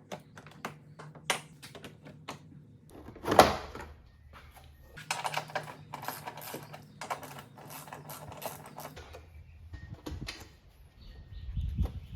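Hand tools being worked on a car engine: scattered sharp clicks, one loud clank about three seconds in, and a stretch of rapid rattling clicks from about five to nine seconds.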